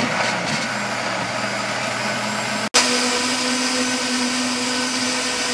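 Countertop blender running at speed, puréeing garlic, onion, herbs and water into a marinade: a steady motor whine with the churn of the blades. It breaks off for an instant about halfway through, then carries on at a slightly higher, steady pitch as the mixture turns smooth.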